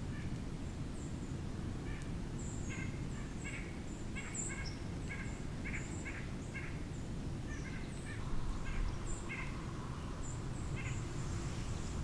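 Birds calling: a string of short, repeated calls with sharp, high chips among them, over a steady low background rumble.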